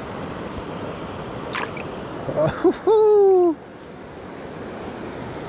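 A river running fast with snow melt, a steady rushing of water over rocks close by. A person's drawn-out 'oh' falls in pitch around the middle and is louder than the water.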